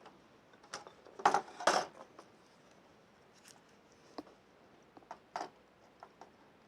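Small clicks and light metallic clinks from handling a desoldering tool against a circuit board. A louder pair of clacks comes about a second and a half in, then sparse single ticks.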